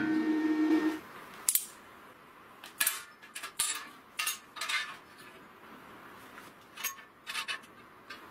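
Small steel foot plates clinking as they are handled and set under square steel-tube legs: about a dozen short, light metallic clinks in small clusters. A loud steady hum stops about a second in.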